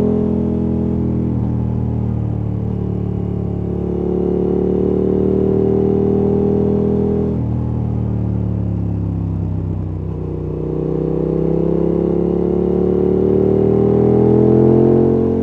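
KTM 1290 Super Adventure S's V-twin engine through a Wings aftermarket exhaust, accelerating up through the gears. The pitch climbs and drops sharply at upshifts about a second in and again about seven seconds in. It sags around ten seconds, then climbs steadily again until a drop at the very end.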